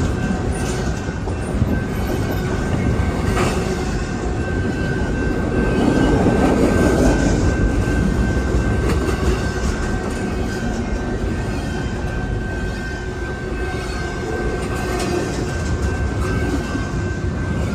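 Cars of a long intermodal freight train rolling past: a steady rumble of steel wheels on rail, with a few clicks and a thin, steady high whine from the wheels.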